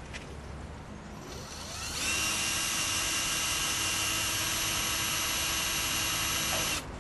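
Power drill with a hole saw boring a drain hole through the plastic floor of a grow bed. The motor winds up over about a second, runs steadily with a high whine, and stops abruptly near the end.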